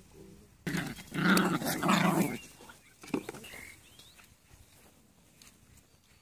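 Italian Greyhound growling, loud, starting about a second in and lasting about a second and a half, with a short sharp sound about three seconds in.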